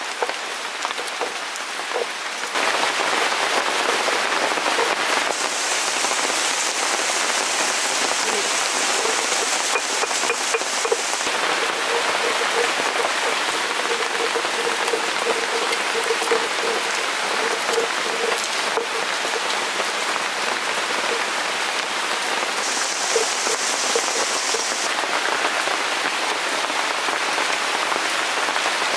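Steady rain falling on surfaces, coming in abruptly about two and a half seconds in, with a low call pulsing on and off underneath.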